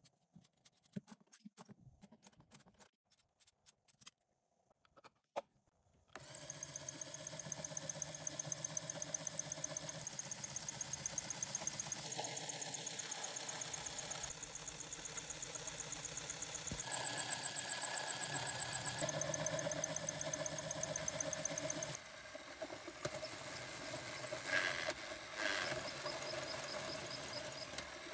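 Light plastic clicks of LEGO parts being handled, then, about six seconds in, a steady engine-like running sound starts suddenly, with a rapid, even pulse. Its tone shifts several times.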